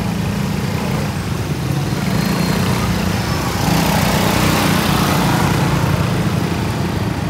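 A small engine running steadily close by. The noise swells for a couple of seconds around the middle.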